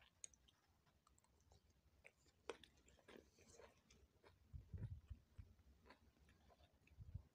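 Faint clicks and scrapes of a plastic spoon scooping fried rice in a paper takeaway box, with soft low thumps a little past halfway and again near the end.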